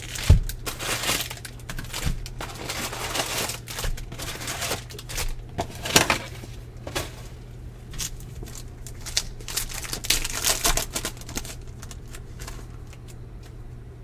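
Foil wrappers of baseball card packs being torn open and crinkled, in irregular rustling bursts, loudest near the start, around six seconds in and around ten to eleven seconds in.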